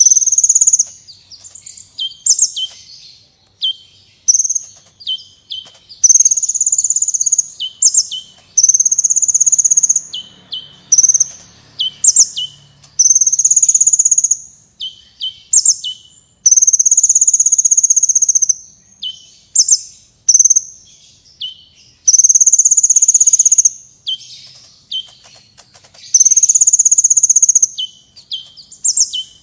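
Kolibri wulung sunbird singing: repeated high, buzzy trills of about a second each, alternating with quick sharp falling chip notes.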